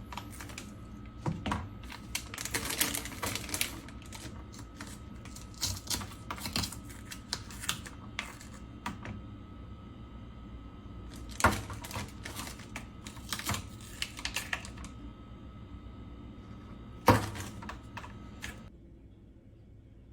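Irregular light clicks and knocks of small hard objects being handled, coming in short clusters, with one louder knock near the end. A faint steady tone underneath cuts off shortly before the end.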